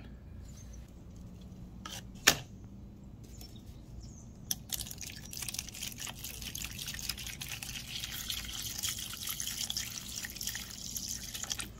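A sharp click about two seconds in, then a steady, finely crackling hiss of liquid for the rest, as a rusty pocket knife is set in a liquid to soak.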